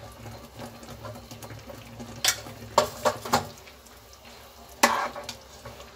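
A steel ladle stirring a simmering, bubbling mango launji in a nonstick frying pan. There is a soft steady bubbling, and the ladle knocks sharply against the pan several times between about two and five seconds in.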